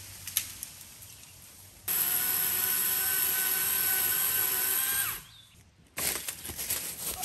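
Chainsaw cutting into a felled tree trunk. It starts about two seconds in, runs at a steady pitch for about three seconds, then winds down and stops.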